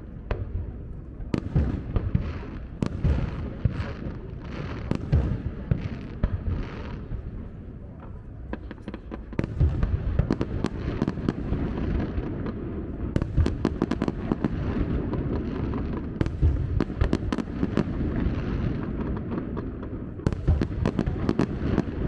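Fireworks display: aerial shells bursting in a rapid run of bangs and crackles over a continuous low rumble. The barrage thins briefly, then gets denser again about halfway through.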